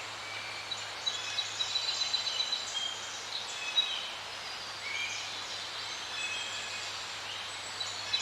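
Forest ambience: many birds calling at once in short, overlapping chirps and whistles, over a soft steady hiss.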